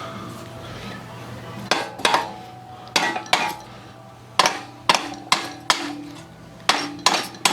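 Sharp metal-on-metal strikes, about ten, mostly in quick pairs, each leaving a brief ringing tone: a steel socket being struck to knock out a snapped-off exhaust manifold stud head stuck inside it.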